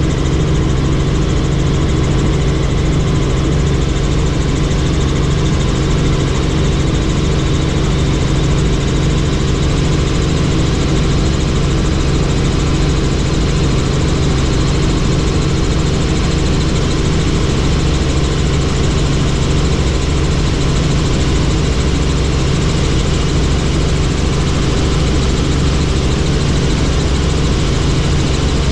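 Helicopter engine and rotor running, a loud steady drone with several constant low hums that does not change.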